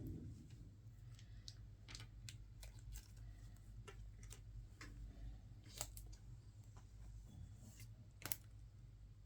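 Faint, scattered clicks and light taps of packaging being handled during an unboxing, over a low steady hum. Two sharper clicks stand out, about six seconds and eight seconds in.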